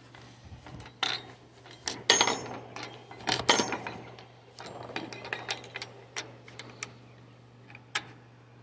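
Wooden gate with a welded-wire panel being pushed and handled, its frame knocking and the wire rattling in a series of irregular clicks and knocks, loudest about two and three and a half seconds in.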